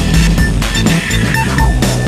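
Background music with a steady beat: drums over a bass line.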